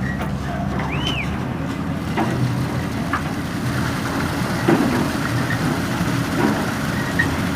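Engine of site machinery running steadily at a constant low pitch, with scattered light knocks and a short high chirp about a second in.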